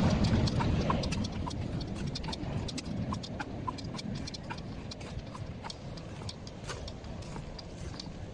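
Footsteps walking on a concrete bank, a light click about twice a second, over a steady low rumble.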